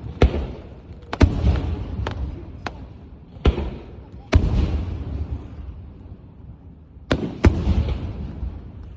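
Aerial firework shells bursting in a rapid series of about eight sharp bangs, each trailing off in a rolling echo. After a lull of about two seconds come two quick bangs close together near the end.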